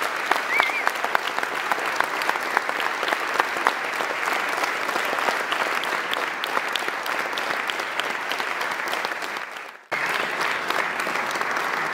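Audience applauding: a dense, steady patter of hand claps that fades out briefly near the end and then comes back abruptly.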